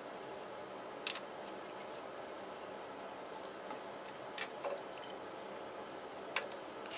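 Glassware being handled: a few short, light clicks and clinks from the glass flasks and funnel, four in all, over a faint steady room hiss.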